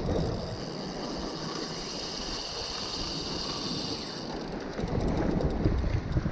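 Steady hiss of wind and sea washing on the rocks. About four and a half seconds in, a run of fast fine clicks as the spinning reel is wound, and the rumble of wind on the microphone rises.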